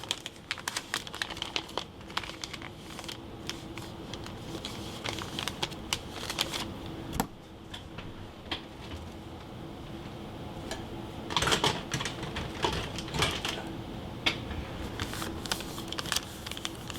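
Paper and adhesive tape being handled: irregular clicks, crinkles and scrapes, with a louder rasping stretch about eleven seconds in. A faint steady hum runs underneath.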